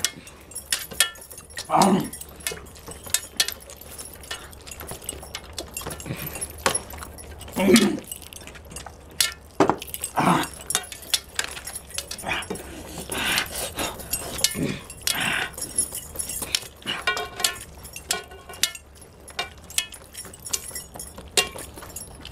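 Eating sounds: hands mixing rice and mutton gravy on steel plates, with scattered clinks of metal on the plates. A few short throaty mouth sounds are heard from the eaters, about 2, 8, 10 and 15 seconds in.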